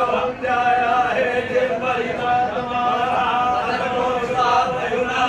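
Several men chanting Sanskrit mantras together in a steady, sing-song recitation during a Shiva abhishek ritual.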